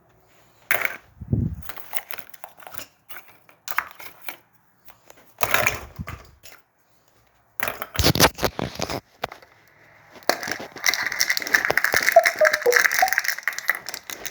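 Plastic surprise egg and its wrapped contents being handled: a few separate clatters and knocks, then a long stretch of plastic wrapper crinkling near the end.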